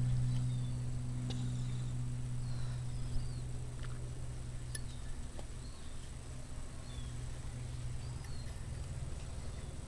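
Steady low hum, with faint short bird chirps and a few light clicks.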